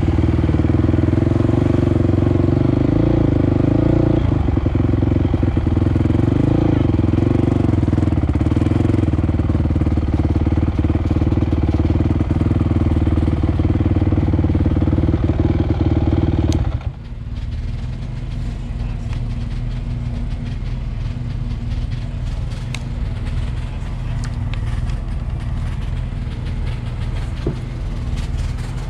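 ATC three-wheeler's engine running steadily at low speed, then shut off abruptly about 17 seconds in. A lower steady background noise with scattered clicks follows.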